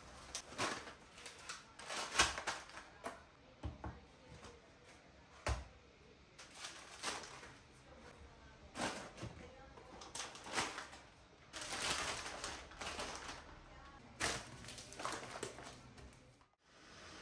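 Groceries being handled and put away: an irregular run of clicks, knocks and rustles from containers, packets and drawers or cupboard doors. Near the end the sound drops out and a steady faint hiss follows.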